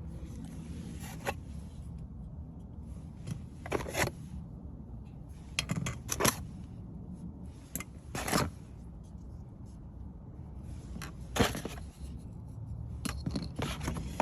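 Handheld cordless car vacuum cleaner being worked over surfaces: short scraping strokes of the nozzle come every second or two over a steady low hum.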